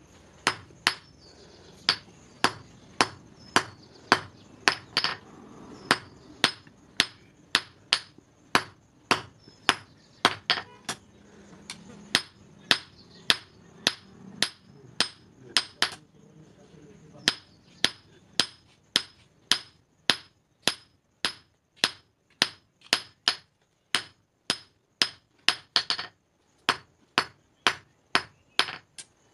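Hand hammer striking hot steel on an anvil in a steady rhythm of about two blows a second, each blow with a short metallic ring, forging a small carving-knife blade; there is a brief pause about sixteen seconds in.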